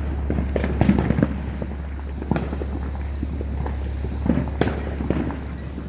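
Neighbourhood fireworks and firecrackers going off in irregular pops and bangs. They bunch up about a second in and again around four and a half seconds, over a steady low hum.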